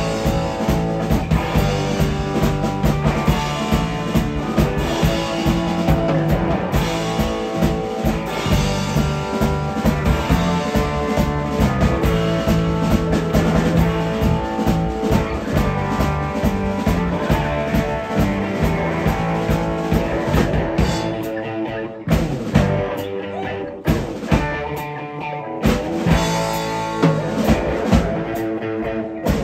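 Live instrumental rock band playing: two electric guitars, electric bass and drum kit. About twenty seconds in the band drops to sparser hits with short breaks between them.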